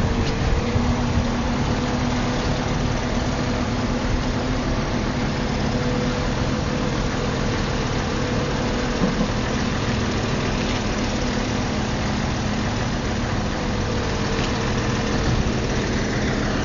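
Forklift running steadily, a constant hum with a low rumble underneath.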